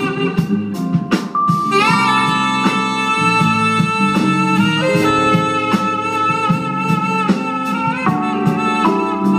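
Live jazz: a tenor saxophone holds long notes, sliding up into a high held note about two seconds in, over a band with bass lines and regular percussion strokes.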